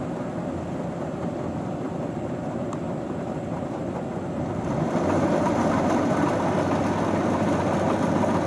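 Rice combine harvester running steadily, with its engine and threshing noise growing louder about five seconds in.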